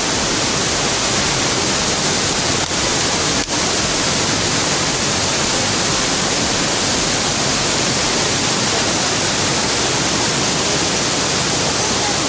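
Waterfall rushing: a steady, loud roar of falling water, with two momentary dips about three seconds in.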